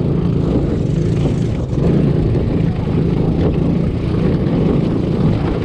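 125cc mini jeep's small engine running steadily under load as it is driven up a rocky trail.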